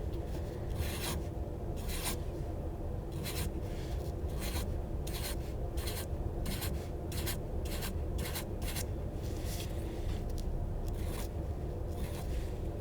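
Scribbling on paper with a drawing tool: short scratchy strokes at irregular intervals, coming faster in the middle, over a steady low hum.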